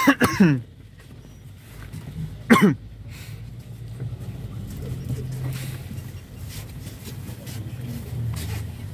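Cabin noise inside a Mercedes-Benz Sprinter minibus on the move: a steady low engine hum with road noise. Right at the start and again about two and a half seconds in come two short, loud sounds that drop sharply in pitch.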